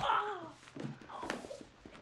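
A man's pained groan falling in pitch just after a punch lands, then a few dull punch thuds in a scuffle.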